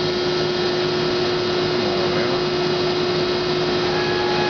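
Hydraulic pump and motor of a 385-ton Accurpress CNC press brake running steadily at idle: a constant hum with a steady whine. A second, higher tone joins near the end.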